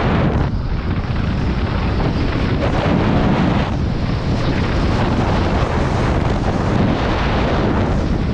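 Wind rushing over the microphone of a downhill mountain bike at speed, mixed with the tyres running over dirt and loose stones.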